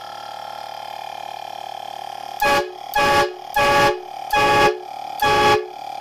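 Four-trumpet 12 V air horn, fed from an electric compressor's air tank, sounded in five short, loud blasts in quick succession starting about two seconds in. Each blast is a chord of several pitches, over a quieter steady tone that runs throughout.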